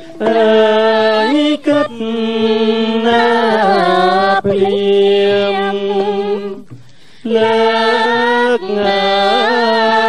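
Khmer classical singing: a singer holds long, ornamented notes that slide and waver in pitch, in several long phrases separated by brief pauses.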